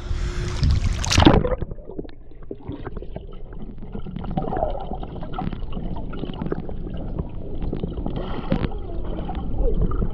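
Splash as a GoPro is plunged into a swimming pool about a second in, then water heard from underwater: a muffled, low rumbling with many small clicks and knocks.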